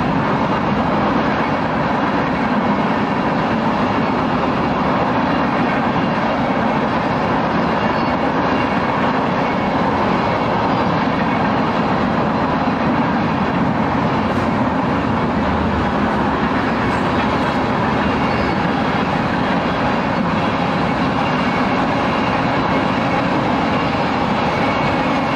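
Tank cars of a freight oil train rolling past close by: steady noise of steel wheels running on the rails.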